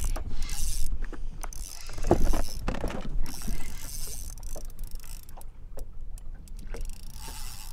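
Fishing reel being cranked, its gears and drag clicking, as a hooked bass pulls on the line. There is a louder thump about two seconds in.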